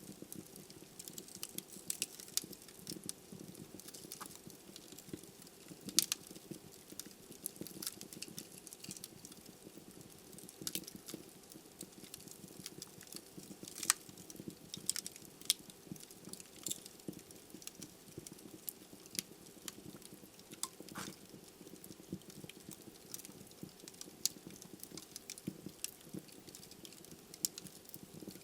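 Log fire burning in a fireplace: irregular sharp pops and crackles over a steady low rush of flame. A few louder snaps stand out, about six, fourteen and twenty-one seconds in.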